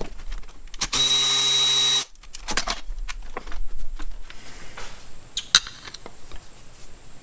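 A cordless power tool whirrs steadily for about a second, running out a water pump bolt. It is followed by scattered light clicks and taps of hand tools on metal, with one sharp click near the end.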